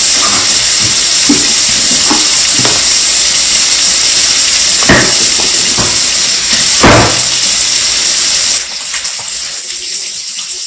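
Kitchen tap running into the sink while hands are washed under it, with two short knocks about five and seven seconds in. The water shuts off about two seconds before the end.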